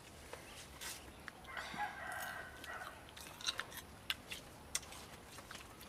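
A rooster crows once, a call of a little over a second starting about a second and a half in, followed by several sharp clicks and taps.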